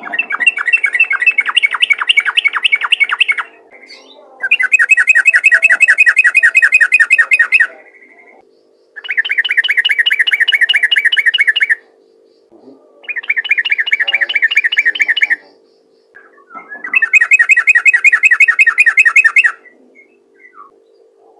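Yellow-vented bulbul singing in rapid rattling phrases of fast repeated notes, five bouts of about three seconds each with short pauses between them.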